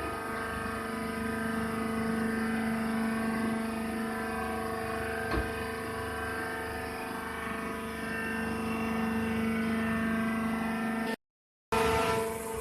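Hydraulic wood shaving baler running: a steady machine hum with a single knock about five seconds in. The sound cuts out for about half a second near the end.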